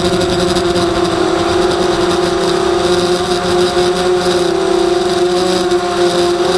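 Emax Nighthawk 250 racing quadcopter's motors and propellers whining steadily in flight, heard through its onboard camera, the pitch wavering slightly as the throttle changes.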